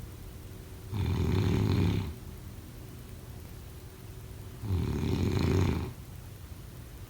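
Snoring: two long snores, each lasting about a second, some three and a half seconds apart.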